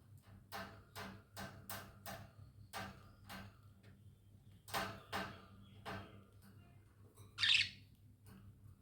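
Pet budgies (budgerigars) chirping in a run of short, sharp calls, a few a second. A single louder, harsh burst comes about three-quarters of the way through.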